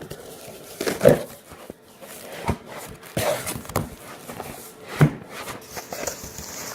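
Cardboard shipping box being opened and handled: irregular scraping and rustling of cardboard with several sharp knocks, the loudest about a second in and about five seconds in.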